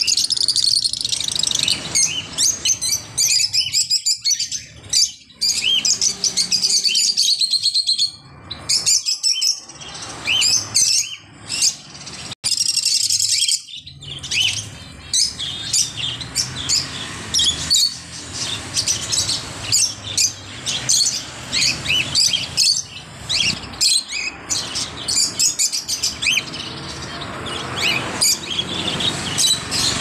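Many caged lovebirds, cockatiels and finches calling together: a dense chatter of short, high chirps overlapping one another.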